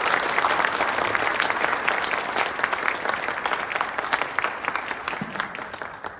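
Audience applauding: dense clapping that thins out and fades away near the end.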